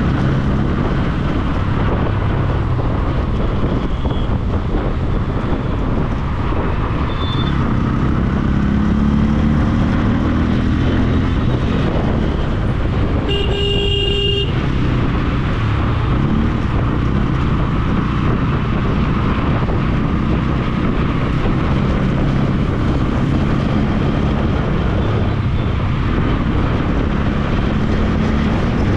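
Motorcycle engine running under way through city traffic, with steady road and wind noise. A vehicle horn honks once, for about a second, midway through.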